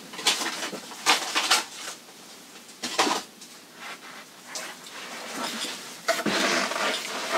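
Handling noises from objects being moved about: a few sharp clicks and knocks in the first three seconds, then a longer rustle near the end.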